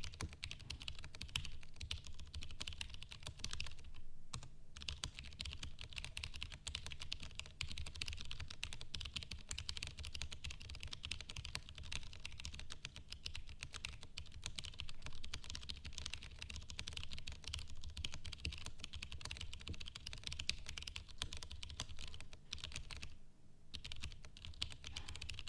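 Fast typing on a custom ergo-layout mechanical keyboard with franken tactile switches: a dense, continuous patter of keystrokes, broken by short pauses about four seconds in and again near the end.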